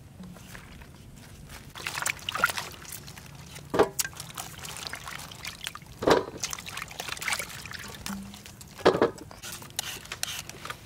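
Water being poured and splashing, with three louder splashes a couple of seconds apart.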